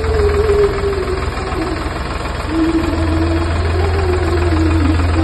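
Sonalika MM-35 diesel tractor engine running steadily at low revs as the tractor moves slowly.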